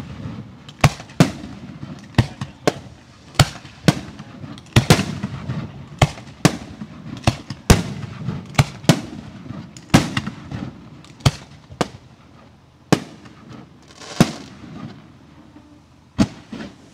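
Professional 1.3G fireworks display: a rapid series of sharp bursting bangs, about two a second, with rumbling echoes between them. The bangs thin out over the last few seconds.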